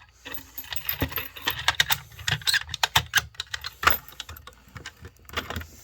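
A bunch of keys jangling and being handled, a fast, irregular run of light metallic clicks and rattles.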